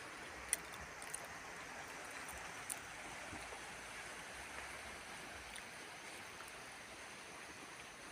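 Faint steady outdoor hiss, with a few brief clicks.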